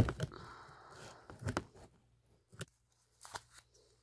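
Cutting into the taped paper wrapping of a consumer firework ball shell: a sharp snip at the start, about a second of scratchy cutting and tearing of paper and tape, then a few separate small clicks and crinkles as the casing is worked open.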